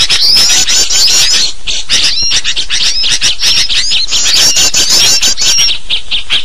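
A dense chorus of small birds chattering and calling at once, mixed with sooty-headed bulbuls: many high, rapid chirps and short trills overlapping without a break. It is a bird-trapping lure recording of agitated, noisy birds, played to attract wild birds.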